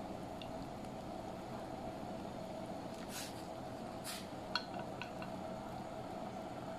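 Kimchi soup boiling in a hotpot over a steady hum, with two short hisses about three and four seconds in and a few light clinks of utensils against the pot soon after, as slices of pork are added.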